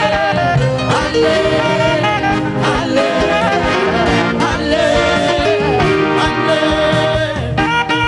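Live band music: a saxophone plays the lead over bass guitar and a drum kit, with singing.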